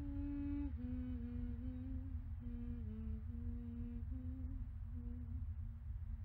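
A person humming a slow tune, one held note after another at about two notes a second, stopping shortly before the end, over a low steady rumble.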